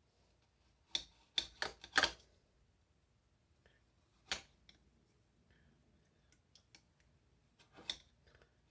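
Small kitchen knife cutting onion slices underwater in a glass bowl. The blade clicks and knocks against the glass: a quick run of about five clicks in the first two seconds, one a little after four seconds, and a couple more near the end.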